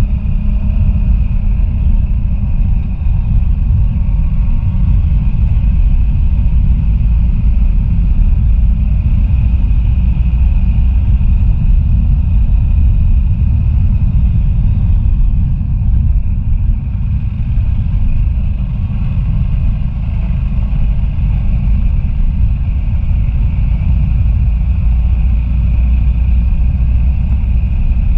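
Steady low rumble of a vehicle driving along an unpaved dirt road, with a faint steady high tone above it.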